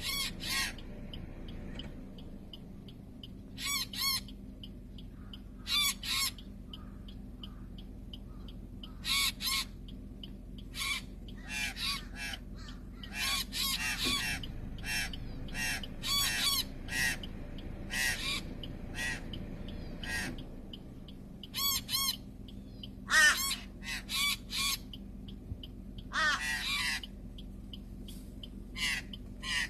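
Birds calling at a snake that is trying to catch one of them in a tree: short calls, singly or in quick runs of several, every second or two.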